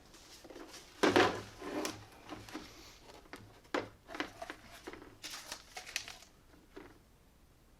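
Hand tools being handled and sorted: a series of irregular clicks, knocks and rattles, the loudest about a second in.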